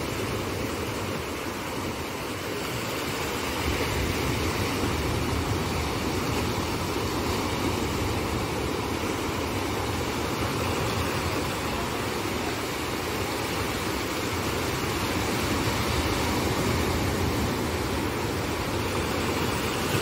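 Sea surf breaking and washing through the shallows: a steady rushing of waves that swells a little a few seconds in and again near the end.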